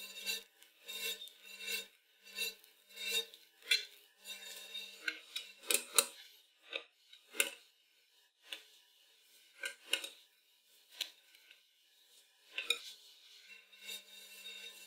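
Metal palette knife scraping through whipped cream and clinking against an aluminium cake turntable, and a wire whisk knocking in the cream bowl, in a dozen or so irregular clinks and scrapes. Quiet background music in the first few seconds and again near the end.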